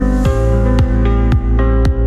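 Electronic background music with a steady kick-drum beat, about two beats a second, over sustained synth chords.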